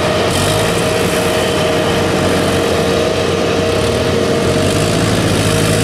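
Engine of a tracked rice-sack carrier running steadily as it crawls across a rice field under a load of full sacks, with a steady whine above the engine note.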